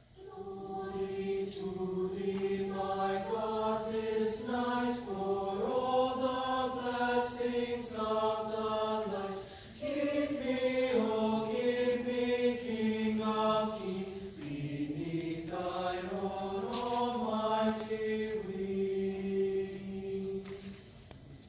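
Mixed high school choir singing a slow song in long, held chords. The phrases break briefly about ten seconds in, and a final chord is held and then cut off near the end.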